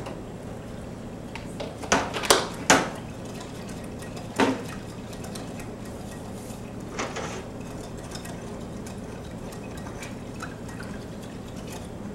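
A thin liquid mixture being whisked by hand in a small bowl, with a few sharp clinks of the whisk against the bowl, a cluster about two seconds in and another near four and a half seconds.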